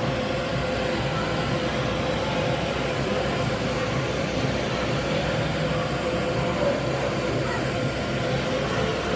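Steady mechanical hum filling an indoor ice arena, with a constant faint tone running through it.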